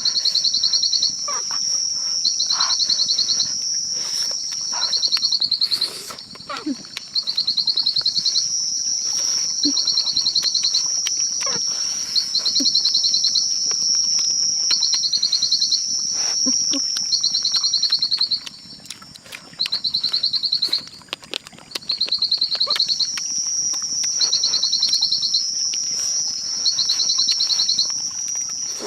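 Night insect chorus: a steady high-pitched buzzing that drops out briefly a few times, over a rapid pulsing trill repeated about every two seconds. Faint clicks and rustles sound here and there underneath.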